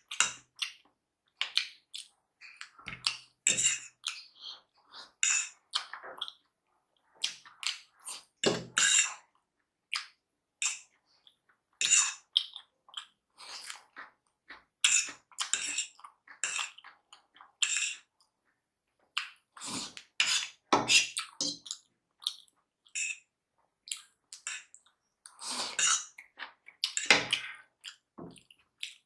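Close-up, irregular wet eating sounds from chow mein noodles in spicy broth being chewed and slurped, in short bursts with pauses between them.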